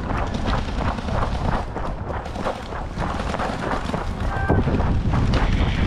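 Footsteps of a person running, about three to four strides a second, with wind rumble on the microphone. A brief high tone sounds about four and a half seconds in.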